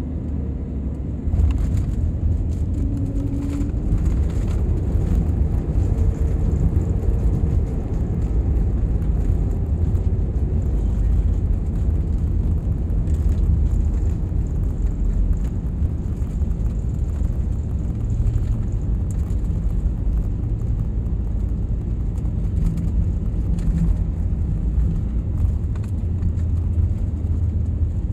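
Jet airliner rolling along the runway after landing, heard from inside the cabin: a loud, steady low rumble of engines and wheels that grows louder about a second in.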